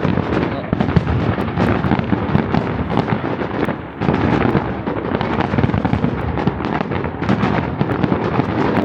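Fireworks display going off: a dense, continuous run of overlapping bangs and crackles, with a brief lull about four seconds in.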